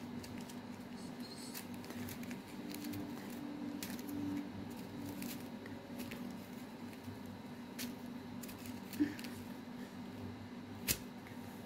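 Faint rustling and small clicks of little plastic bags of resin diamond-painting drills being handled and sorted by hand, with a sharper click near the end. A steady low hum runs underneath.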